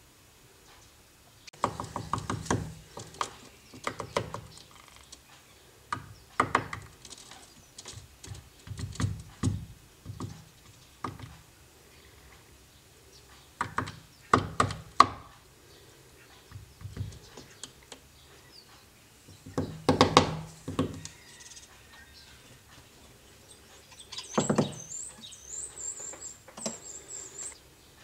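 Syrian woodpecker hammering its bill into a wooden window frame, chiselling at and damaging the wood. The pecking comes in about eight bouts of rapid hard taps, each a second or two long, with pauses between them.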